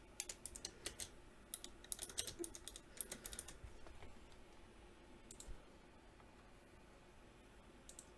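Faint, irregular sharp clicks and taps in quick clusters through the first three and a half seconds, then a couple more about five and a half seconds in and again near the end.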